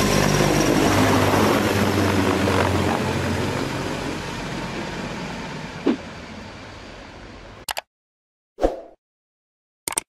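Mi-26 heavy-lift helicopter passing low overhead: loud rotor and turbine noise with a steady low hum, fading over several seconds and then cutting off abruptly. This is followed by three short, separate sound effects near the end.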